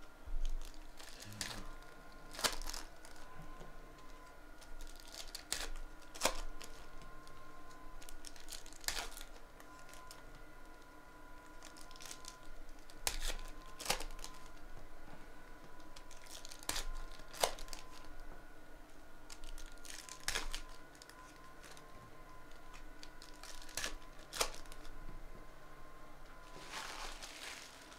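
Trading cards being handled and sorted by hand: scattered sharp snaps and taps of card stacks every few seconds, with some crinkling and a longer rustle near the end.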